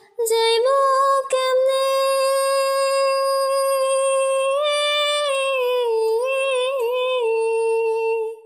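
A woman's voice singing unaccompanied, holding one long note for about eight seconds. The pitch steps up slightly about a second in and again around the middle, then wavers in a short ornament before settling near the end.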